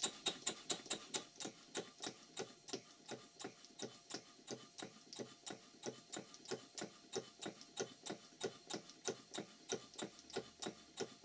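Stuart 5A model steam engine running on compressed air at about 15 psi, giving an even, rapid ticking of about five beats a second. Its crankshaft is moving up and down in a loose main bearing, the top cap being a rattle fit.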